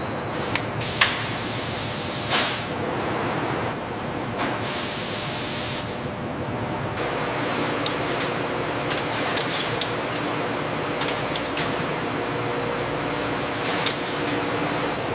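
Steady hissing noise with several short, louder hissing bursts and a few sharp clicks; faint steady hums join in about halfway through.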